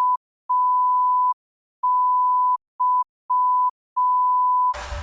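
Censor bleep: one steady, pure beep tone cut into six bleeps of uneven length, the longest under a second and one very short, with dead silence between them. It blanks out a stretch of the sketch's profane dialogue.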